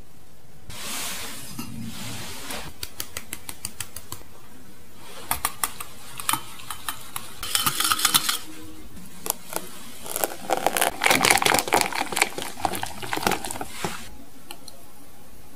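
Liquid cream mixture pouring into a cake mould for a moment, then a utensil ticking and clinking against a small glass bowl as matcha paste is stirred. Near the end, a wire whisk beats matcha batter in a glass bowl with fast, dense clicking, the loudest part.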